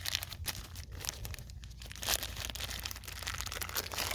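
Handling noise: irregular crinkling and rustling with scattered light clicks and knocks as the recoil starter and its new pull cord are handled, over a steady low hum.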